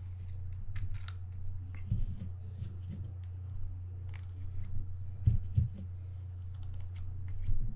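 Small scattered clicks and taps as parts are handled and fitted back onto the main shaft of a Quantum Catalyst 40PTS spinning reel during reassembly of its anti-reverse, with a couple of duller knocks a little after halfway, over a steady low hum.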